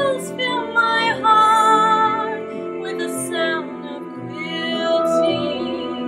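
Music with long held notes and a woman's singing voice.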